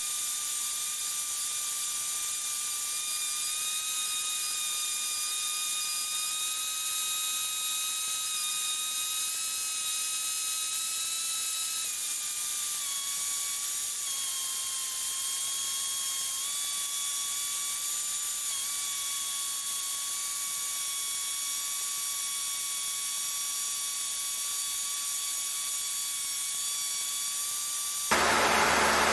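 Cessna 152 cabin noise heard through the headset intercom audio feed: a steady high whine over hiss. Its pitch drops slightly about halfway through and then holds steady.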